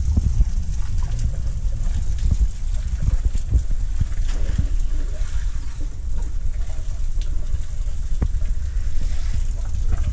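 Water sloshing and splashing as African bull elephants drink hose water from the wet concrete with their trunks, under a steady low rumble of wind on the microphone.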